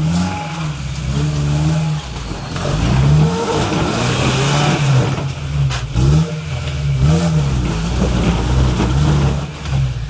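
Toyota Tacoma's 3RZ four-cylinder engine revving up and down again and again under load as the truck crawls over a rocky waterfall ledge, with a single knock about six seconds in.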